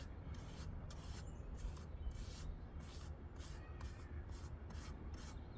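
Back-and-forth rubbing strokes on a wooden practice board, even and repeated about two to three times a second, as the wood is worked by hand during sanding and staining.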